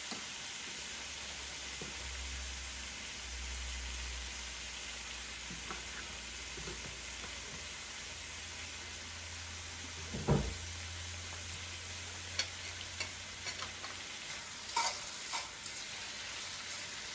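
Shrimp frying in hot vegetable oil in a pot, with a steady sizzle. A sharp knock about ten seconds in is the loudest sound, and several lighter clicks follow near the end.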